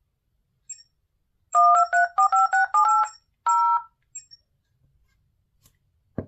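Rakuten Hand P710 smartphone ringtone: a quick run of about nine short electronic notes stepping up and down in pitch, then a single longer note after a short gap. Two soft low thumps near the end.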